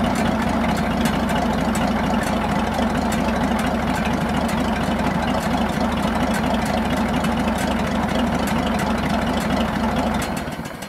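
Cletrac Model BG crawler tractor's engine idling steadily, fading out at the very end.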